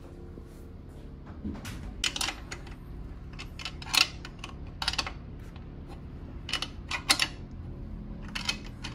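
Wrench clicking and clinking on a motorcycle's frame and rear suspension bolts as they are checked for tightness: short, sharp metallic clicks in small irregular clusters, over a low steady hum.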